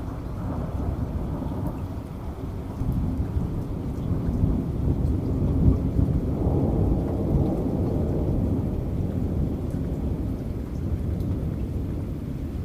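Steady rain with a long rolling rumble of thunder that builds a few seconds in, is loudest around the middle, then eases off.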